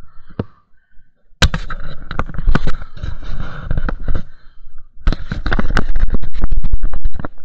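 Close, loud crackling and crunching of dry twigs, leaves and debris as the camera is carried through undergrowth. It comes in two runs a moment apart, and the second is a quick series of sharp cracks loud enough to distort.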